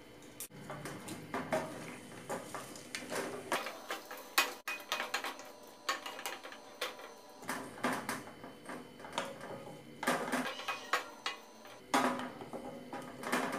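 A spatula stirring sliced potatoes in a gravy in a stainless-steel kadai. It scrapes and knocks against the pan in irregular clusters of clicks.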